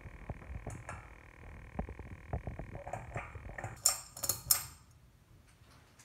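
Progress Lighting Builder 52-inch ceiling fan running with a steady hum and rapid, irregular ticking. About four seconds in, its pull chain rattles sharply and the switch clicks, and the hum stops.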